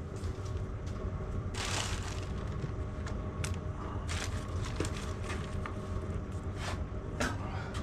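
Plastic bags crinkling and rustling as small parts are handled on a workbench, with a few sharp clicks of parts being picked up and set down. A steady low hum runs underneath.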